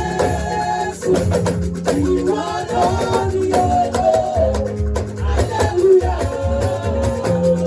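Praise music: singing with instrumental accompaniment and percussion keeping a steady beat.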